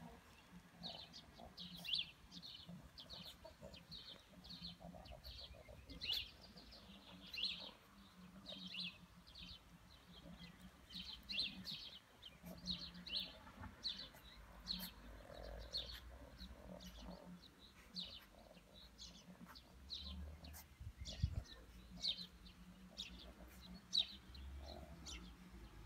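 Small birds chirping: short, high chirps repeating about once or twice a second, faint.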